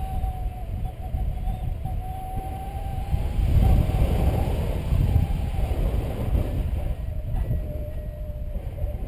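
Wind buffeting the microphone in flight under a paraglider, loudest from about three and a half to five seconds in. Beneath it a paragliding variometer sounds a continuous electronic tone, the climb/sink signal the pilots steer by, which dips a little in pitch in the second half.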